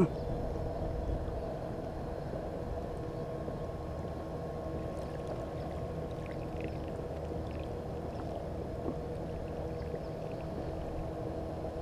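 Fishing kayak moving along under pedal power: water washing along the hull with a faint steady hum. A sharp knock right at the start.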